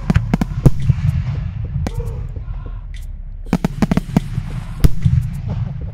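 Fireworks going off: irregular sharp bangs and pops, the loudest shortly before the end, over a steady low rumble.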